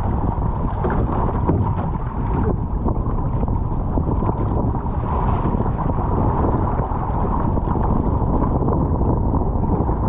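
Wind buffeting the microphone over a steady rush of water along the hull of an outrigger canoe being paddled through choppy sea.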